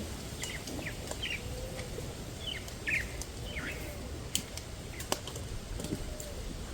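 A bird calling in short, falling chirps, about one or two a second, over a low steady rumble, with a few sharp clicks in between.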